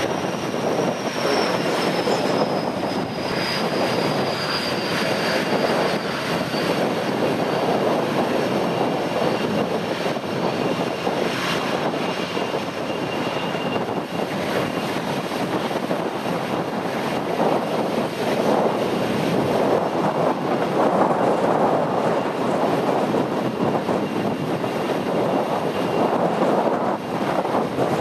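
CAC Sabre's Rolls-Royce Avon turbojet running at low taxi power: a steady jet rush with a thin high whine on top that falls a little in pitch over the first few seconds.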